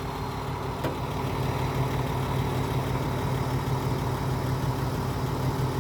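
A working machine's engine running steadily at an even, low hum, with a faint click about a second in.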